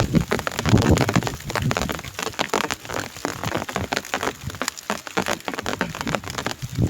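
Steady rain pattering: a dense run of small drop ticks, with a low rumble about a second in.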